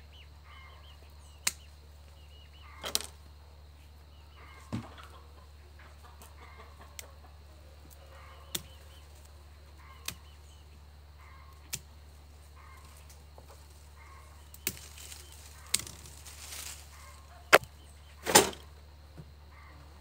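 Hand shears snipping at leucena branches, about a dozen sharp clicks at irregular intervals, the loudest near the end, with hens clucking faintly in the background.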